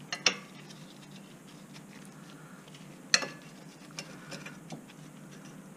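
Metal wrench clinking as it is fitted onto the ball-joint nut of a car's lower control arm: two sharp clinks, one about a quarter second in and one about three seconds in, then a few fainter ticks.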